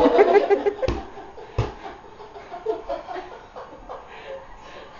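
A few people laughing and calling out, loudest in the first second, with two sharp thumps about a second and a second and a half in.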